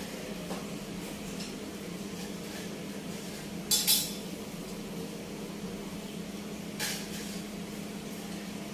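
Dishes and cutlery clinking a few times, a close pair about four seconds in and another near seven seconds, over a steady low hum.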